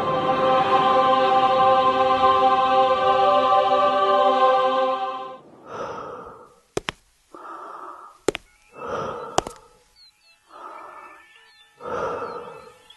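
A held music chord sounds for about five seconds and then stops. After it comes slow, heavy breathing through a respirator mask, one breath about every one and a half seconds, with three sharp clicks between the breaths.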